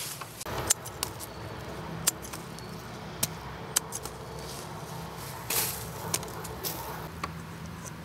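Hand pruning shears snipping the stems off freshly dug yam bean (jicama) roots: a string of sharp, irregular clicks, with a brief rustle of the vines about five and a half seconds in. A low steady hum runs underneath.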